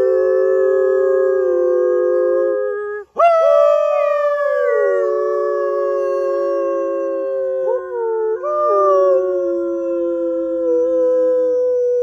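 People imitating eastern wolf howls together: several long, held human howls at slightly different pitches, each sliding slowly downward. About three seconds in they break off briefly and start again with a rising swoop, and the pitches waver and break around eight seconds in.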